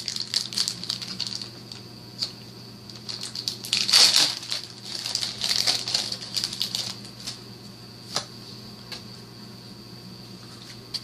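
Foil trading-card booster pack crinkling and being torn open, irregular crackles and rips, the loudest about four seconds in. A steady low hum sits underneath.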